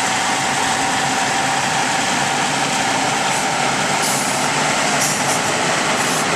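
Scammell Explorer military recovery tractor's engine running under load as it tows a low-loader carrying a Scammell Constructor, a steady, even drone with no change in pitch.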